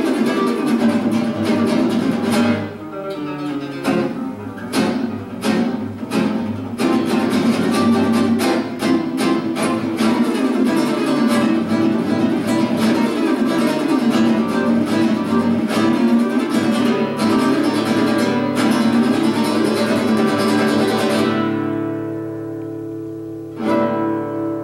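Solo classical guitar played fast and densely, with many sharp strokes across the strings. About 21 seconds in it thins to a sustained ringing chord, and near the end one more sharp stroke is struck and left to ring.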